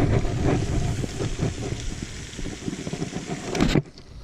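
Wind buffeting the microphone: a steady low rumble with small knocks and rustles of handling. It cuts off abruptly just before the end.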